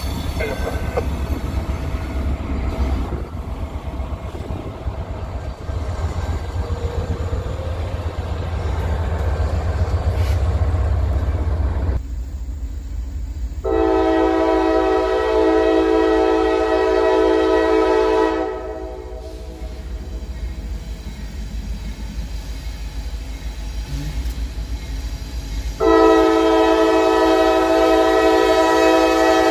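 Low road rumble from inside a moving car. Then a Norfolk Southern diesel locomotive's multi-note air horn blows two long steady blasts, one about halfway through and one near the end, the warning for the grade crossing that the train is approaching.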